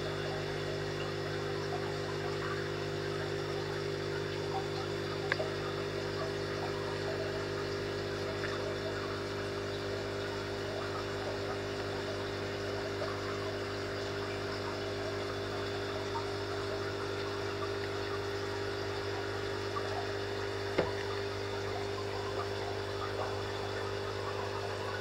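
Aquarium pump humming steadily with water trickling and bubbling, and two brief knocks, about five seconds in and about twenty seconds in.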